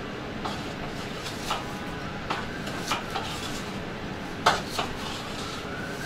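Knife clicking and knocking against a cutting board as apples are sliced: scattered irregular taps, the loudest about four and a half seconds in.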